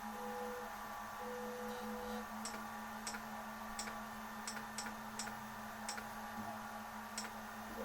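Steady low electrical hum, with a short mid-pitched tone about a second in and about eight faint, irregular ticks from partway through.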